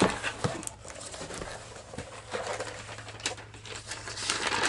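A cardboard mailer box being opened by hand and a paper letter pulled out: irregular rustling, scraping and small clicks of cardboard and paper, over a steady low hum.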